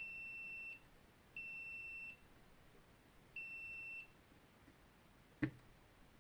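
Multimeter continuity tester beeping three times, each a steady high beep of under a second, as the probes are touched to soldered switch terminals and find a connection. A sharp click follows near the end.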